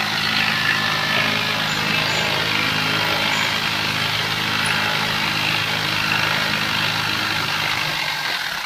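A machine running steadily: an even, low motor hum with a hiss over it.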